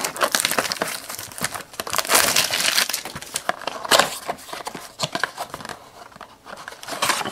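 Packaging of a Topps Heritage baseball card blaster box crinkling and tearing as it is opened by hand, an uneven run of crackles and rips, loudest about two and four seconds in.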